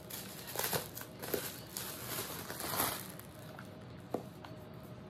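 Plastic bubble wrap crinkling as it is pulled open by hand, in short crackles. The loudest rustle comes nearly three seconds in, followed by quieter handling.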